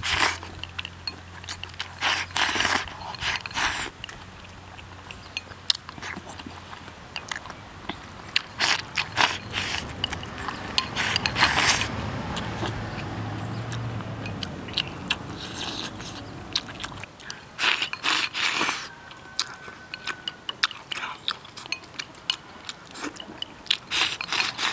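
A person eating rice soaked in braised beef sauce straight from a ceramic bowl, shovelling it in with chopsticks and chewing. Chopsticks click against the bowl in several separate flurries.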